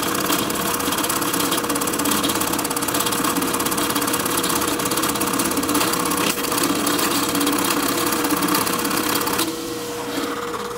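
Drill press running a Kanzawa K-302 power expansive bit No.2 through a wooden board: a steady motor hum under a rapid chatter of the cutter shaving the wood. Near the end the cutting noise falls away and the motor runs on more quietly.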